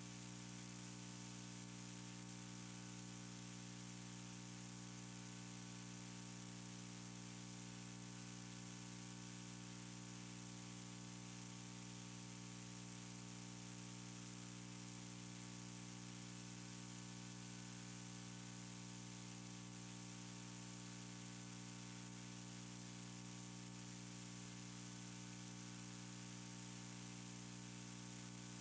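Faint, steady electrical hum and hiss: a buzz with many evenly spaced overtones under a high, even hiss, unchanging.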